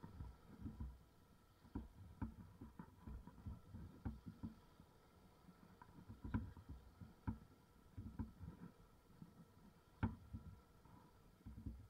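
Faint, irregular low thumps and knocks, with a few sharper clicks, from a motorbike and its mounted camera jolting over a rutted dirt track.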